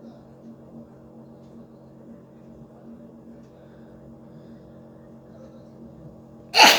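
A woman sneezes once, loud and sudden near the end, the sneeze trailing off in a falling voice. A steady low hum runs underneath before it.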